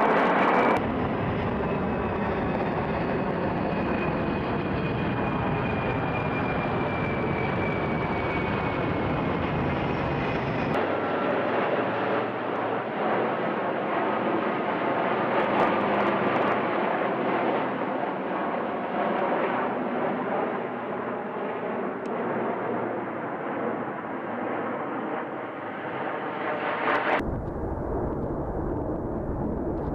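Four-engine military transport aircraft running overhead. First comes the turbofan roar of a C-17 Globemaster III, with a high whine that slowly falls in pitch. After an abrupt change about 11 seconds in comes the steady drone of a C-130's turboprops during a parachute cargo drop. An abrupt switch near the end brings a heavier, deeper jet roar of a C-17 on low approach.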